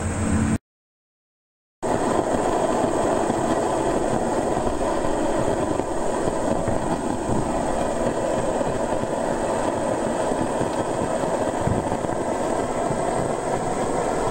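Circa-1926 Reid Type A two-stroke oil field engine running steadily with its belted line shaft machinery. The sound drops out completely for about a second near the start.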